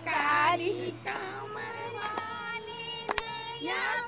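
Women's voices singing a devotional swing song (jhula bhajan), moving into a long held note in the second half. A single sharp click sounds about three seconds in.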